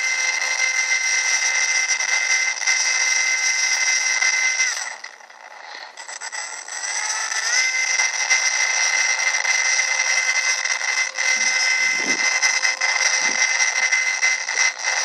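Electric motor and propeller of a radio-controlled FPV plane whining steadily at several pitches. The whine cuts out about five seconds in and comes back with a rising pitch a couple of seconds later as the throttle is closed and opened again. A few dull low bumps come near the end.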